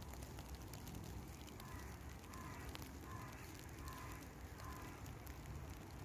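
A crow cawing about five times in an even series, faint, over a low steady rumble.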